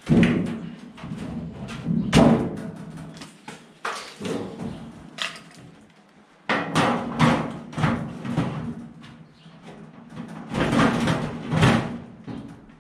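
Steel tool cabinet being handled and turned upside down: irregular clusters of metallic knocks, thuds and rattles from its sheet-metal body.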